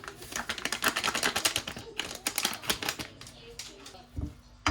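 Knife chopping rapidly on a cutting board in two quick runs of strokes.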